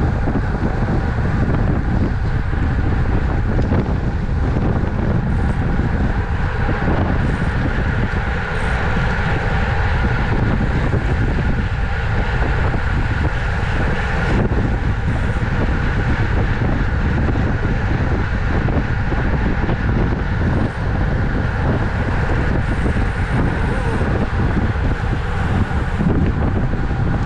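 Steady, loud wind rush over the microphone of a camera on a racing bicycle moving at speed.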